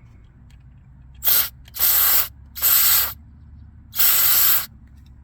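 Aerosol can of electrical contact cleaner sprayed in four short bursts into a car's door-jamb light switch, to clean the faulty contact that keeps the courtesy lights from working.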